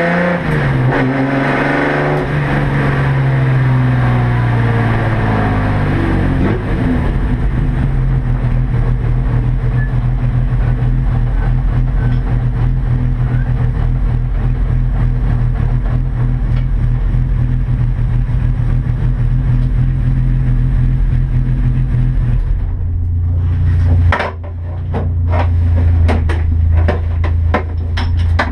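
Race car engine heard from inside the stripped cabin, its pitch falling as it slows over the first few seconds, then running steadily. About 22 seconds in it drops to a lower, steady note, and a series of sharp clicks and knocks follows near the end.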